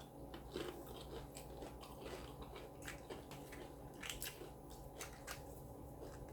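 A person chewing a mouthful of taco close to the microphone: irregular, wet crunching, several crackly bites a second.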